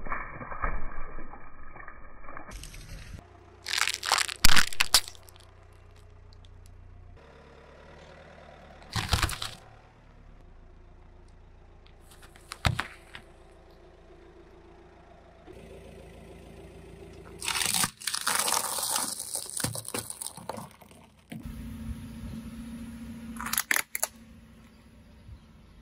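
A car tyre rolling over and crushing a series of objects: Capri Sun drink pouches bursting with a splash at the start, then a run of separate sharp cracks and crunches, including apples being squashed about twelve seconds in. The loudest crack comes about four and a half seconds in.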